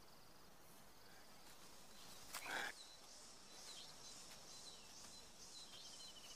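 Faint rainforest ambience: small high chirps repeating every half second or so and a thin insect-like trill. A short burst of noise comes about two and a half seconds in.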